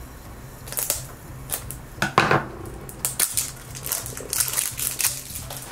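Clear plastic shrink-wrap on a plastic toy capsule crinkling in a run of short crackles as it is cut with scissors and peeled off by hand.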